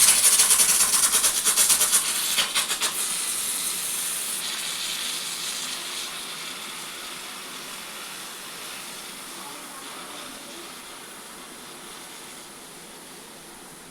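Pressure cooker venting steam with no whistle. It gives a loud, fluttering hiss for about the first three seconds, then a steady hiss that slowly dies away.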